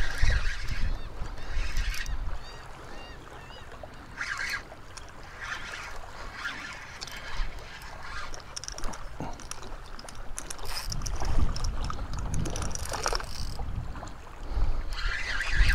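Wind gusting against the microphone in bursts of low rumble, with a few short bird calls a few seconds in.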